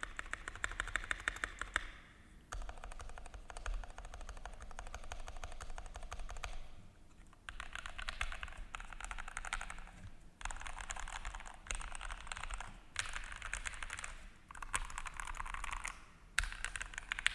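Typing test on a GMMK Pro aluminium mechanical keyboard with JWICK Yellow linear switches and Noir cherry-profile keycaps: rapid, even keystroke clatter in runs, broken by short pauses several times.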